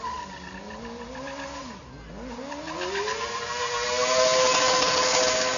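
Sport motorcycle engine easing to low revs, then climbing from about two seconds in and held at high revs as the rear tyre spins in a smoking burnout, with tyre squeal and hiss growing louder over the engine.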